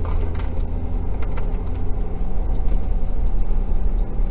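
Steady low rumble of a pickup truck's engine and road noise inside the cab, with the truck driving slowly while towing a fifth-wheel trailer. A few faint clicks sound over it.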